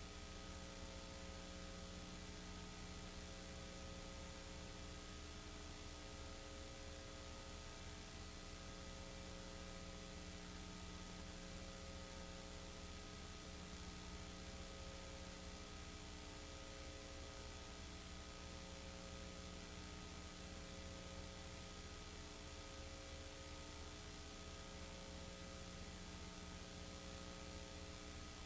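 Steady electrical hum and hiss, with a faint tone that swells and fades about every two seconds; no other sound.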